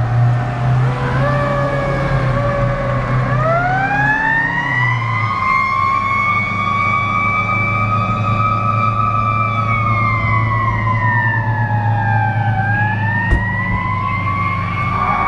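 Fire apparatus siren wailing: after a few seconds of falling tones, it rises slowly about three seconds in, holds, falls and climbs again near the end, over the steady low rumble of the trucks' engines.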